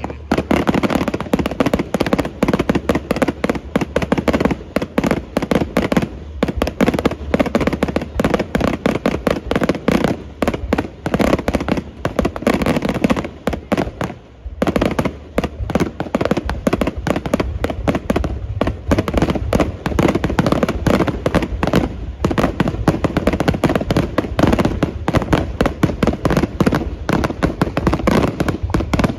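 Fireworks finale: a dense, rapid barrage of aerial shell bursts, one on top of another, with a short thinning about halfway through.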